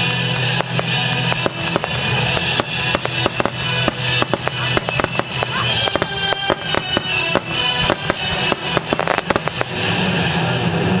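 Fireworks display: many shells bursting in a dense, irregular run of pops and bangs, busiest about nine seconds in, over music played with the show.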